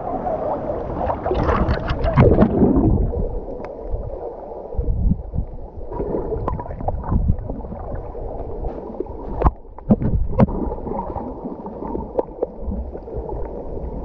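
Water splashing around a snorkeller's camera, then muffled underwater sloshing and gurgling with a low rumble, broken by a few sharp knocks.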